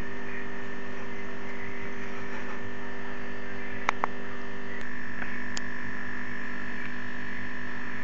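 Steady electrical hum made of several constant tones over a faint hiss, with two quick sharp clicks about four seconds in.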